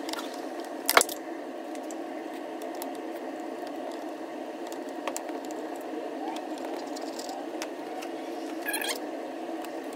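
Hand Torx screwdriver backing small screws out of a portable bandsaw's plastic housing: a sharp click about a second in and a light metallic clink near the end, over a steady background hum.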